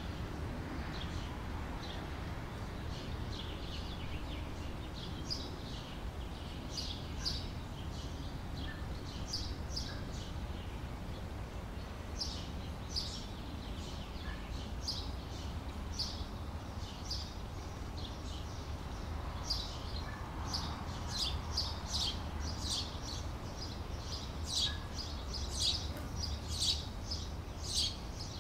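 Small birds chirping in short, quick high calls that come thicker and louder toward the end, over a steady low background rumble.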